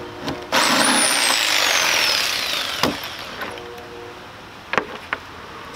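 Cordless power saw cutting through plywood: it starts abruptly about half a second in, loud, with a high whine that falls steadily as the blade works through the cut, then fades out. A few sharp knocks follow as the saw is handled.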